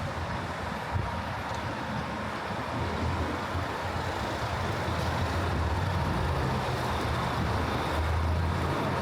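City street traffic: a steady hum of engines and tyres, with a low vehicle engine rumble growing louder in the second half.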